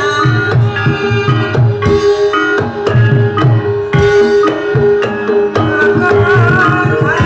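Javanese gamelan accompaniment for a Banyumasan dance: kendang hand drums in a quick, busy rhythm under struck keyed instruments ringing out a melody, with a wavering vocal or melodic line near the end.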